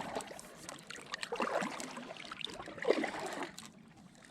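Kayak paddle dipping and pulling through water, with splashing and trickling drips between the strokes, and a couple of louder splashes.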